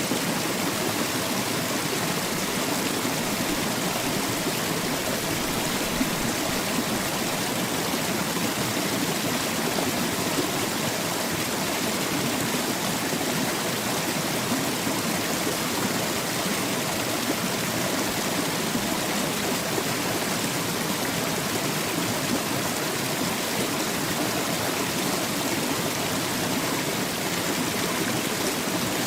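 Water of a small waterfall pouring and splashing from close up, a steady, dense rush.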